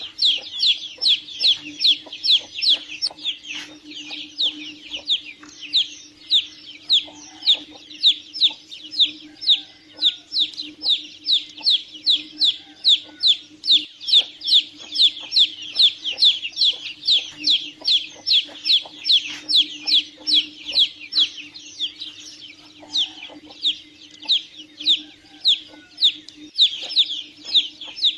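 Domestic chicks peeping continuously, a steady stream of high peeps that each fall in pitch, about three a second, with a low steady hum underneath.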